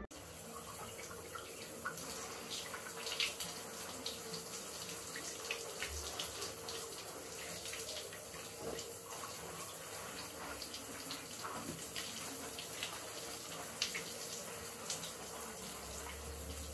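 Water running steadily from a tap, with scattered sharp clinks and knocks.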